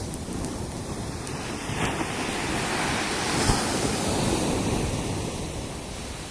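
Ocean surf: a wave breaks and washes up the beach, swelling over about two seconds and then easing off, with wind rumbling on the microphone underneath.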